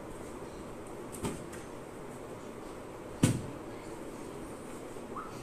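An inflated balloon being batted by hand: a light tap about a second in and a loud thump about three seconds in.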